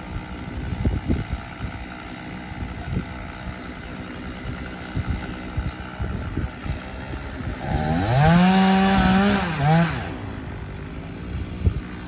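Chainsaw at the base of a tree, revving up to full throttle about eight seconds in, holding for about two seconds, dipping and revving once more, then dropping off. Before that there is only a low rumble with scattered knocks.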